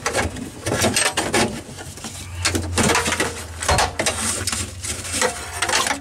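Irregular knocks, rattles and scraping as a Jeep Cherokee XJ rear seat belt's retractor and webbing are worked through the trim and pulled free of the body.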